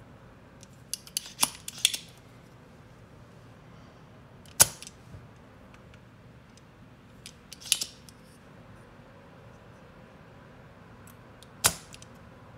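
Manual spring-loaded solder sucker (desoldering pump) at work: two sharp snaps of the plunger firing, a little under five seconds in and near the end, with clusters of lighter plastic clicks between.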